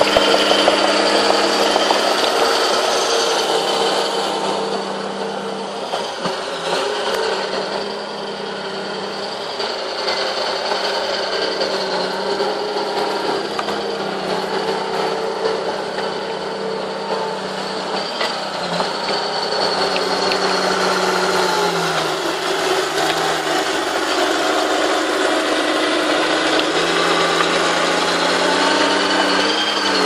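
Crawler bulldozer's diesel engine running steadily under load as it pushes earth, with the clatter of its steel tracks. The engine note drops slightly about two-thirds of the way through and rises again near the end.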